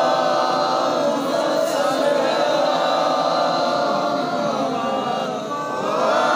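A crowd of men chanting a prayer together, many voices overlapping in a steady, continuous recitation that softens briefly about five and a half seconds in.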